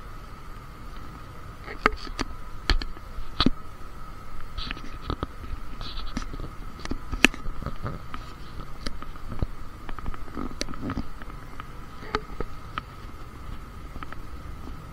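Cabin noise inside a running C851E metro train (Alstom Metropolis): a steady rumble with a constant whine, broken by scattered sharp clicks and knocks, the loudest about seven seconds in.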